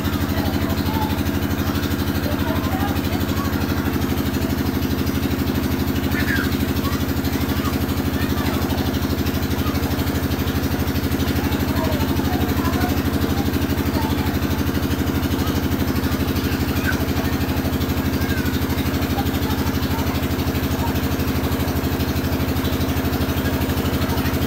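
A motor running steadily: a constant low, pulsing drone with no change in speed, under faint scattered voices of swimmers.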